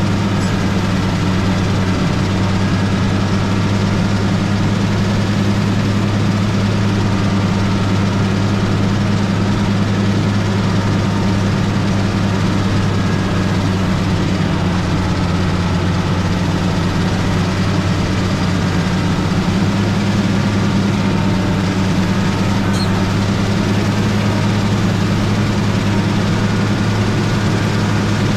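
Motor grader's diesel engine running at a steady speed with an even, deep hum.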